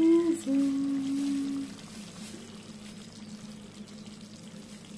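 A woman humming two short notes, the second held steady for about a second, then faint room noise with a low steady hum.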